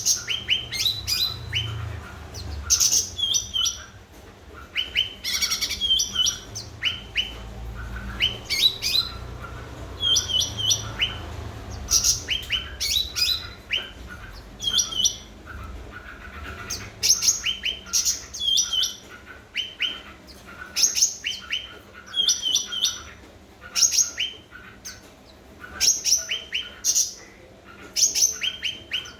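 A cucak ranting songbird singing busily: short bright chirping phrases repeated about every one to two seconds, the lively song that keepers use to lure other birds into singing. A low rumble runs beneath during the first half.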